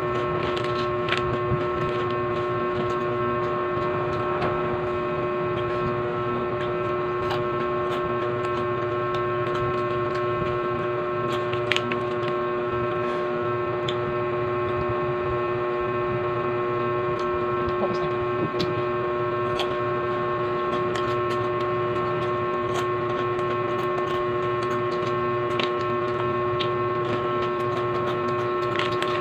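A steady, unchanging hum of several fixed tones throughout, with scattered short crisp crunches and crinkles from cheese-ring puffs being bitten and a foil snack bag being handled.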